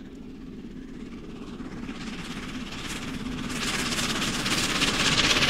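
Steam locomotive approaching, its rumble and hiss growing steadily louder, loudest near the end.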